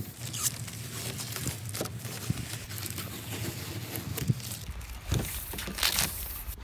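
Masking tape being peeled off a canoe's hull and scrunched up by hand: scattered crinkles and short rips, the longest near the end.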